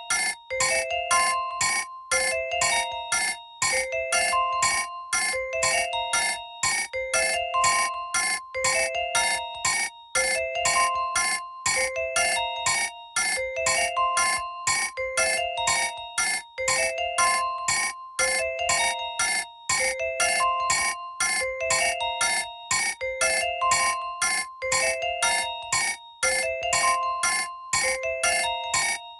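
Nokia 1110 mobile phone ringtone playing: a fast electronic melody of short notes that loops about every two seconds.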